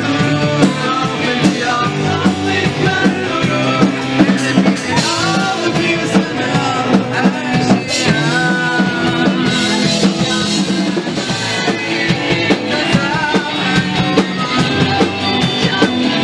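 Rock band playing live: a Fender Telecaster electric guitar, a bass guitar and a drum kit, with a man singing over them.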